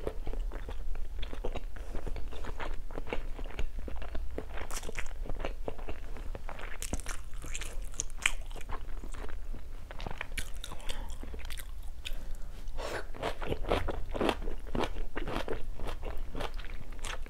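A person eating Korean black bean noodles with kimchi close to the microphone: a steady run of small wet chewing clicks and crunches, thickest a little past the middle.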